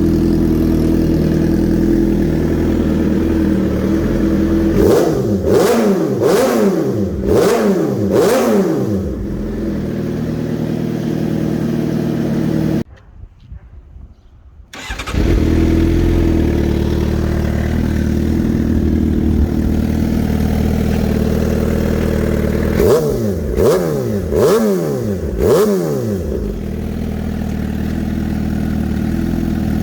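2018 Suzuki GSX-R750's inline four-cylinder engine idling steadily, blipped up and back down in two sets of about four quick revs. The sound drops out for about two seconds in the middle before the idle picks up again.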